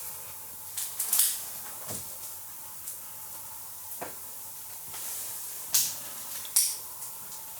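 Several short rustling, scuffing noises over a steady hiss, with two faint brief knocks in between.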